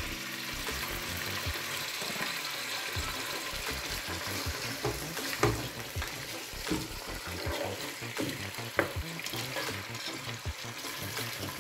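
Pieces of meat sizzling as they sear in oil in a pot, with a plastic spatula scraping and turning them every so often.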